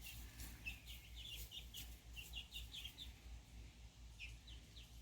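Young chickens peeping: faint, short, high chirps, several a second, falling slightly in pitch.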